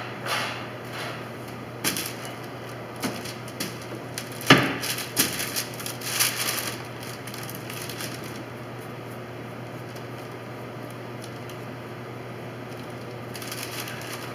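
Scattered knocks, footsteps and paper rustling as a person climbs into a wooden boat and kneels on its bench, with one sharp knock on wood about four and a half seconds in. After that only a steady low hum is left.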